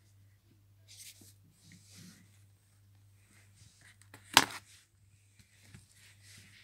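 Faint rustling and handling noise over a low steady hum, with one sharp knock a little past the middle.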